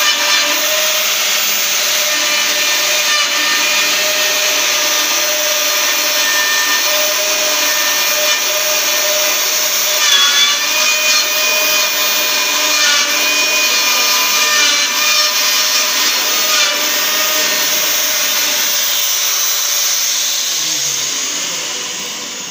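Metabo KFM 15-10 F metal edge bevelling machine running under load, its milling cutter chamfering the edge of a steel plate: a steady high motor whine over the rasp of cutting metal, dying away near the end.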